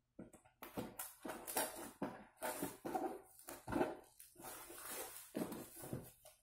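Scissors slitting the packing tape along the seam of a cardboard box, a run of irregular scraping, tearing strokes about two or three a second.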